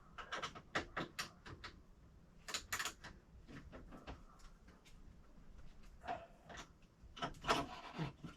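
Irregular clicks and knocks of tools and parts being handled during engine work, coming in small clusters, with the loudest group near the end.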